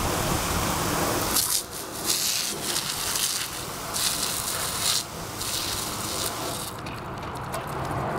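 Garden hose water spray hissing, the jet coming through in several loud bursts of about a second each and dying away near the end.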